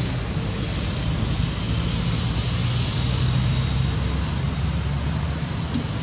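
Steady low rumble of a motor vehicle's engine running, with no sharp events.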